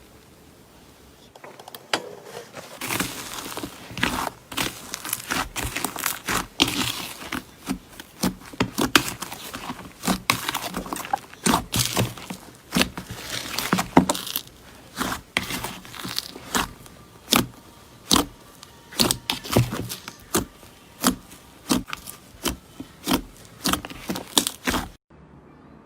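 Slime being squeezed and pressed by hand, giving a rapid, irregular run of sharp crackles and pops, with more regular popping later, until it cuts off abruptly near the end.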